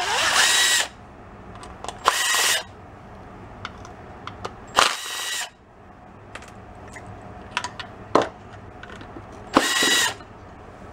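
Cordless driver run in four short bursts, each spinning up with a rising whine, backing out the screws of a turn-signal lamp's lens to open the lamp. Small clicks of handling come between the runs.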